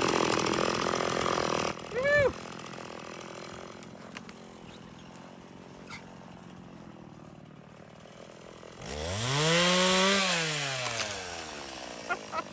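Two-stroke chainsaw revving. It gives a short rev about two seconds in and runs low for several seconds. Near the end it revs up in one long climb and falls back to idle.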